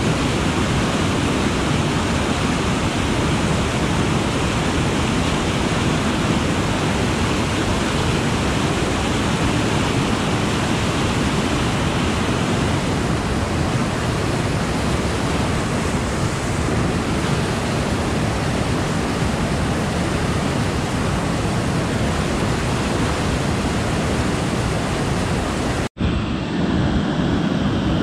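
Whitewater of a river waterfall pitch, a steady loud rush of falling and churning water. It cuts out for an instant near the end, then the rush goes on.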